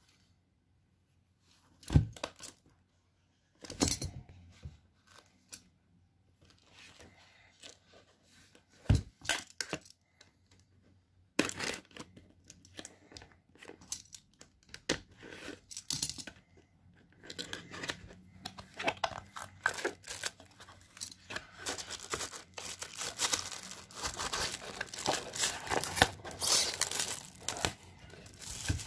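Cardboard product box being handled and opened: a few separate knocks at first, then from about eleven seconds in, rustling, scraping and tearing of cardboard that grows busier toward the end.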